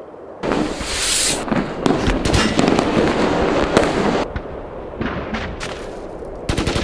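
Loud rapid popping and crackling blasts start suddenly, with a hissing rush at first. They ease off after about four seconds, then break out again as fast, rapid pops near the end.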